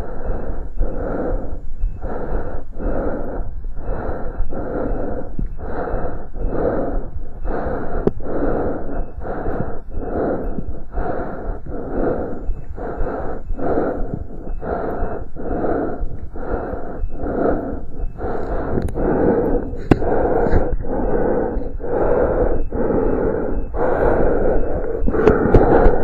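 Chest sounds picked up by a stethoscope during exercise: a fast, regular train of short rushing pulses, about one and a half a second, over a steady low hum.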